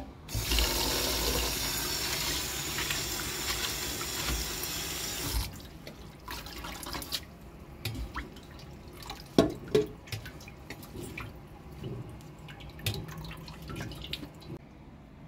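Tap water running hard into a stainless steel sink for about five seconds, then cut off. After it, splashing and swishing as hands rinse fresh herbs in a bowl of water and lift them into a metal colander, with light clinks of metal.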